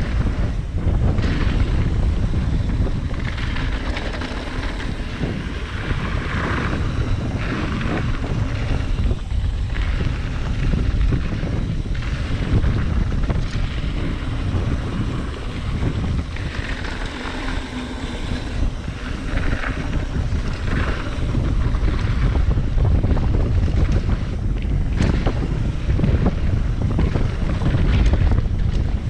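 Wind rushing over the microphone of a camera riding on a mountain bike as it descends a dry dirt trail. Under it are the tyres rolling over dirt and scattered knocks and rattles from the bike over bumps.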